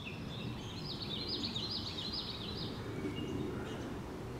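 A songbird singing: scattered high chirps and a quick run of repeated falling notes, about four a second for roughly two seconds, over a steady low rumble of outdoor background noise.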